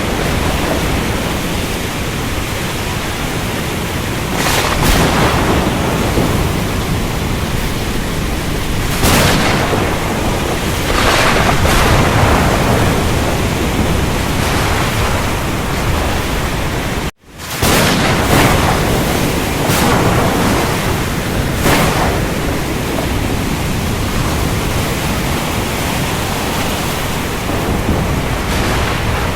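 Storm at sea: a steady roar of rain and surf with several brief louder surges and rumbles of thunder. The sound cuts out abruptly for a split second a little past halfway, then resumes.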